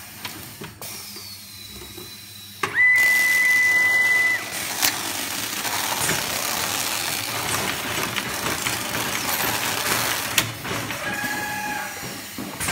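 Automatic fireworks cake-making machinery running. About three seconds in, a loud, steady, high beep lasts a second and a half. Then a steady whirring hiss sounds as the wrapping ring spins tape around a bundle of cake tubes, and it eases off near the end.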